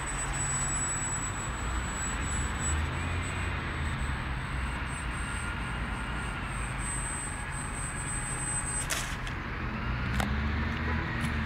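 Faint whine of a small RC plane's brushless electric motor and propeller, rising and falling in pitch, over a steady rush of noise, with two sharp clicks near the end.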